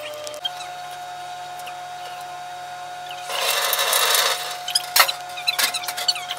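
A commercial kitchen pre-rinse spray faucet sprays water for about a second into a metal colander in a stainless-steel sink. This is followed by a few sharp metallic knocks and rattles in the sink.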